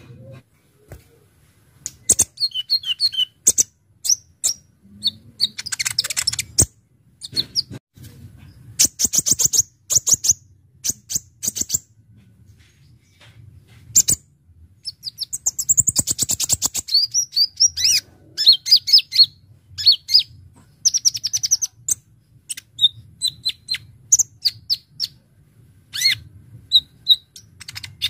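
Kolibri ninja (konin) sunbird singing at full song: bursts of rapid, high trills and sharp chirping phrases with short pauses between, over a faint low hum.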